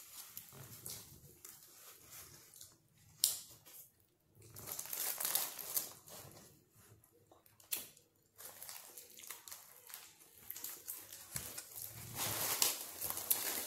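Paper and foil food wrapping crinkling irregularly as a shawarma is handled, with a few sharp clicks. The crinkling grows louder and denser near the end as a paper-wrapped sauce cup is unwrapped.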